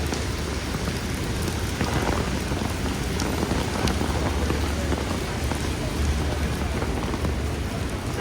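Steady heavy rain falling, an even hiss with a low rumble beneath it and a few scattered drop ticks.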